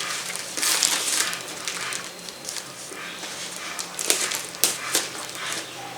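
Packing tape being cut with scissors and pulled off a cardboard parcel: irregular scratchy rips and scrapes with a few sharp snips.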